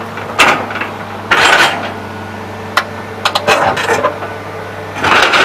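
John Deere 690E excavator's diesel engine running steadily while its bucket scrapes and clanks against rock in several irregular bursts.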